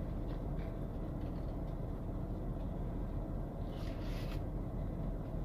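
Steady low rumble of a parked car running, heard inside its cabin, under the sounds of someone chewing a burger; a short rustle about four seconds in.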